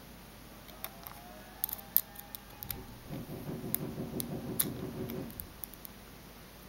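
Small screwdriver tightening the terminal screw of a three-pin plug on the live wire: scattered light clicks and taps, with a grating, scraping turn in the middle lasting about two and a half seconds.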